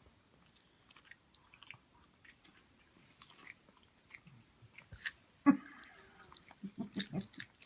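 A pet chewing popcorn with scattered crisp crunches, a louder sudden noise about five and a half seconds in and a quick run of crunches near the end.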